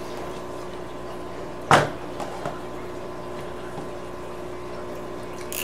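A single sharp knock about two seconds in, over a steady hum.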